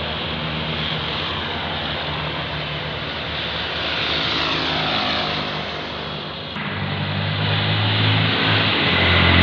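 Large diesel tour bus passing on the road: engine and tyre noise whose pitch falls as it goes by about four to five seconds in. About six and a half seconds in the sound changes abruptly, and a heavy engine rumble grows louder toward the end.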